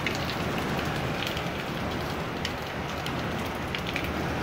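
Heavy downpour: rain falling hard and splashing on surfaces, a steady dense hiss with many scattered sharp drop hits.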